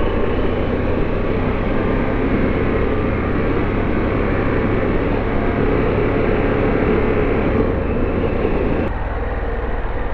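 Motorcycle engine running on the move, with heavy wind rush on the microphone. About nine seconds in the wind noise drops away and the engine settles to an even idle as the bike comes to a stop.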